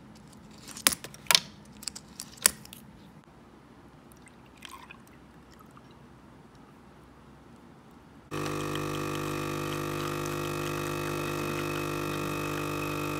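A few sharp clicks and knocks of things being handled, then about eight seconds in an electric appliance switches on and runs with a steady, even hum.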